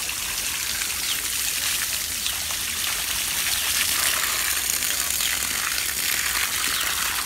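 Water gushing steadily from a garden hose, splashing through the leaves of a shrub and onto the wet soil of a flower bed.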